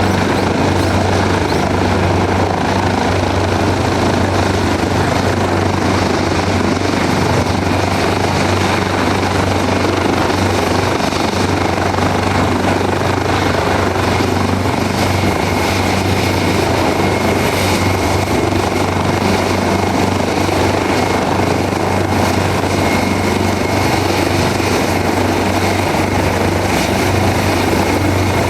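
Leonardo AW189 twin-turbine helicopter running with its rotor turning: a steady, loud rotor beat over turbine and airflow noise. A faint high whine joins about halfway through.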